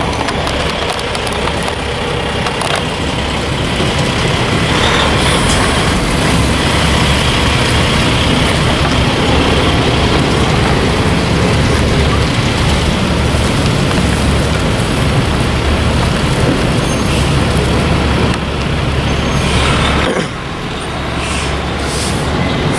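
Heavy diesel truck running steadily, a low rumble that drops off suddenly about twenty seconds in.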